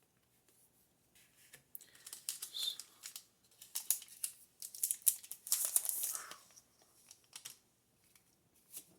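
Foil wrapper of a Pokémon TCG booster pack crinkling and tearing, with sharp crackles and rustles of cards being handled; it starts about a second and a half in and dies away about a second and a half before the end.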